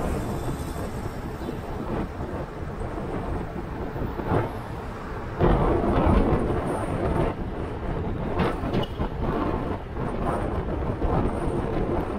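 Car driving on the road, heard from inside the cabin: a steady low rumble of road and engine noise. About five and a half seconds in it swells into a louder rumble for a second or so.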